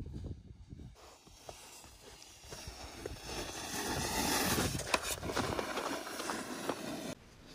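Snowboard sliding over slushy spring snow, a scraping hiss that swells as the board passes close about three to five seconds in, with a sharp knock near five seconds.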